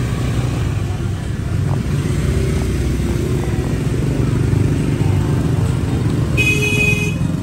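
Motorbike traffic in a busy street, a steady low engine rumble, with a short high-pitched horn beep about six and a half seconds in.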